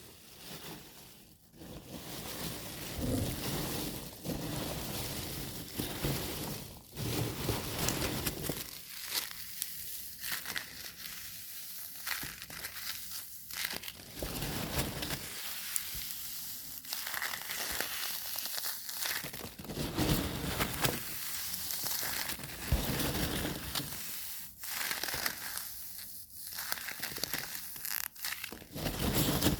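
Continuous irregular crunching and crinkling, like something being crushed or crumpled close to the microphone, with a few brief pauses.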